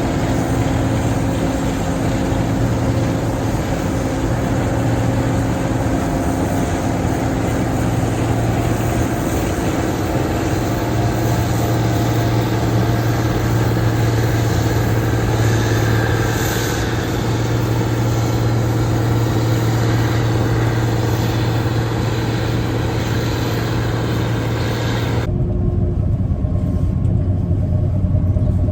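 Gleaner R62 combine running steadily while harvesting soybeans: a constant loud engine and machinery hum with several steady tones. About 25 seconds in the sound changes abruptly to a deeper, duller hum.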